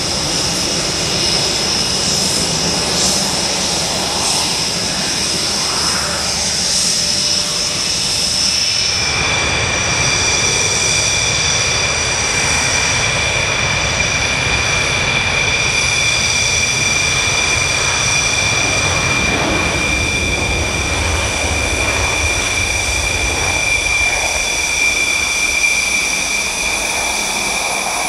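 Jet engines of taxiing fighter aircraft, a steady high whine over a rumble. About nine seconds in it changes from a Panavia Tornado's engines to a Dassault Rafale's, whose whine sits lower and steadier.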